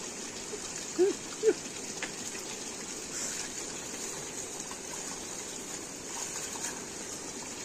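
Running water at a small stream, a steady rushing hiss. Two short vocal sounds come about a second and a second and a half in.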